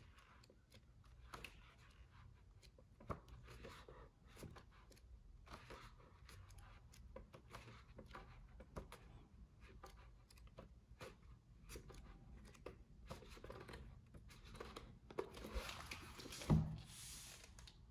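Pages of a large art book being turned by hand: faint paper rustles and flicks throughout, a quick riffle of pages near the end, then a soft thump as the book is closed.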